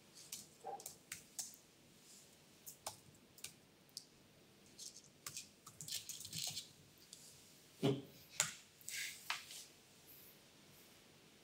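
Faint typing on a laptop keyboard: irregular key clicks, with a louder, heavier tap about eight seconds in.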